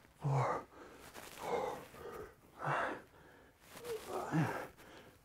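A man breathing hard through dead bug core reps: four forceful breaths about a second apart, one with each rep, a couple with a short grunt in them.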